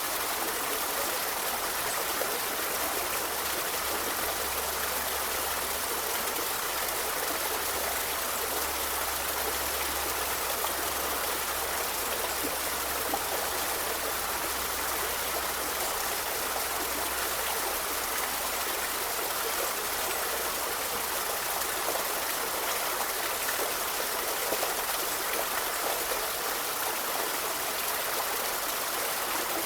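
River water flowing: a steady, even rush of running water with no change.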